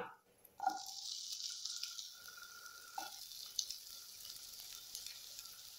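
Diced brinjal (eggplant), just drained from its soaking water, going into a nonstick pan of hot oil with fried onions, setting off a soft sizzle that starts under a second in and slowly dies down. A couple of light knocks come as the pieces land.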